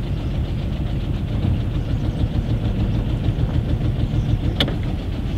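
A small engine running steadily at idle: a low, evenly pulsing rumble, with a single sharp click about four and a half seconds in.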